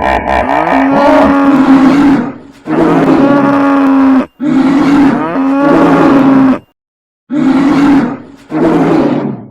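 Animal calls from a stampede sound effect: a run of loud, long, pitched calls of about a second each, one after another, with a short silence about seven seconds in.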